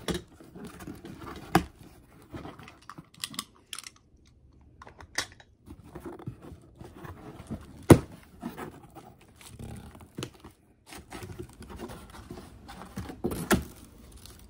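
A knife slitting the packing tape on a cardboard shipping box, with irregular scraping, tearing and rustling as the tape and cardboard flaps give way. One sharp click about eight seconds in is the loudest sound.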